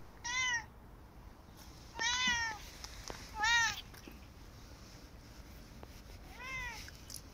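A Korat cat meowing four times, short high meows that each rise and then fall in pitch; the last one, near the end, is softer.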